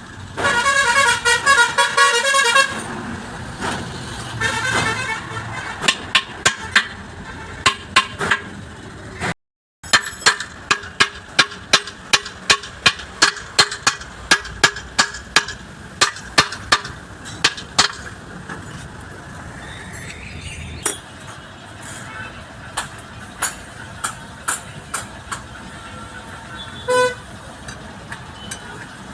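A vehicle horn honks with a fast warble, twice in the first five seconds, then a run of sharp knocks follows at about two a second for around ten seconds. A short horn toot comes near the end.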